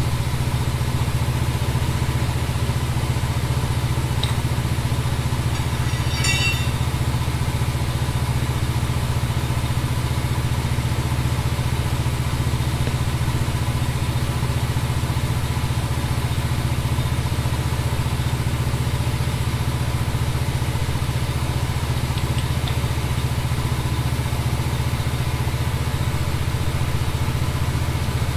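An engine idling steadily with a low, even rumble, with a brief high chirp or squeak about six seconds in.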